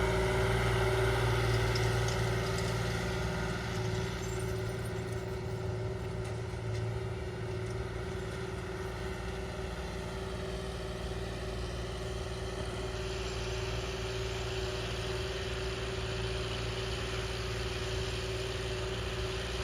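A tractor's diesel engine running steadily under field work, a constant hum that eases slightly over the first several seconds and then holds level.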